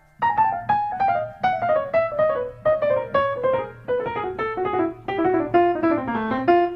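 Piano music: a melody of single struck notes, about four a second, stepping steadily down in pitch before turning back up near the end.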